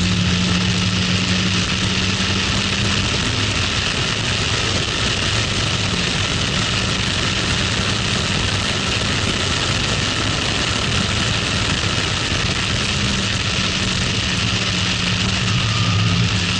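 Toyota MR-S's stock-exhaust 1ZZ-FE 1.8-litre four-cylinder engine running hard under power as the car speeds up, easing off near the end as it slows, over a steady rush of wind through the open roof.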